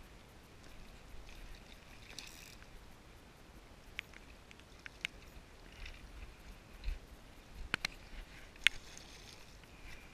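Faint splashing from a hooked paddlefish thrashing at the surface as it is drawn in to the bank, with a few scattered sharp clicks and taps, the loudest near the end.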